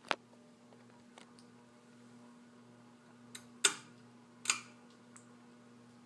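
Alaska AC-4152 52-inch ceiling fan running, its large spinner motor giving a steady low hum. About half a dozen sharp clicks come over the hum, the loudest a little past halfway through.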